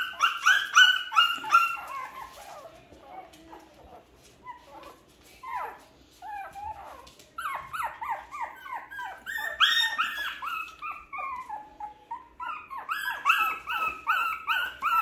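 One-month-old Shih Tzu puppies yelping and whimpering in quick high calls, each falling in pitch, several a second. The calls fade for a few seconds after the start and pick up again about halfway through and near the end.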